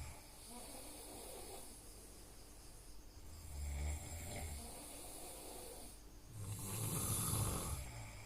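A person snoring: a soft breath, then a low snore about three seconds in, and a louder, longer snore about six seconds in.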